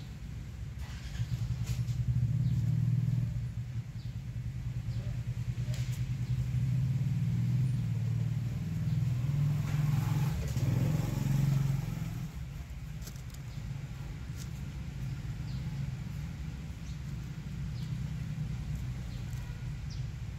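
A nearby engine runs with a low, steady hum. It grows louder about a second in, is loudest around ten to twelve seconds in, then eases to a quieter hum.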